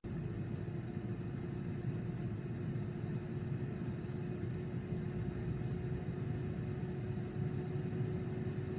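Steady low mechanical hum and rumble with one constant tone over it, as of a motor or fan running without change.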